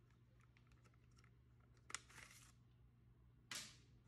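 A sharp click and about half a second of sliding scrape, then a second brief swish that fades out: a dark slide being drawn out of a plastic 4x5 sheet-film holder. Otherwise near silence.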